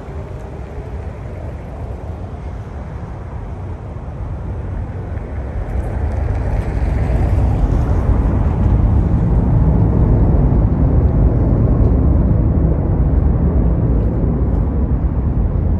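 Jet engine rumble of a Boeing 777-300ER growing louder about four seconds in as the airliner approaches overhead, then holding a deep, steady roar.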